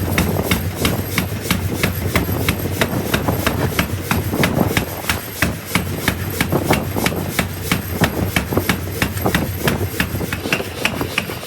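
Factory machine running with an even, rhythmic clatter of sharp clicks, about three to four a second, over a steady low hum.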